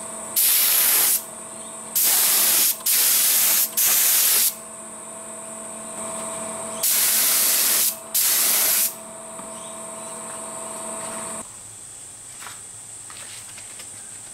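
Air spray gun spraying lacquer sealer onto a timber base: six short bursts of hiss in the first nine seconds, each under a second, with a steady hum between them that stops near the end.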